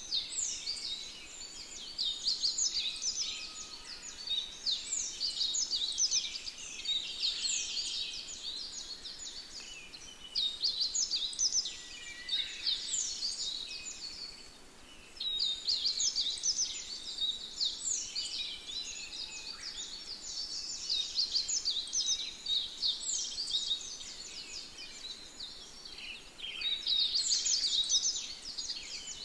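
Birds chirping in dense bouts of many quick, high, falling notes, each bout lasting a few seconds with short lulls between.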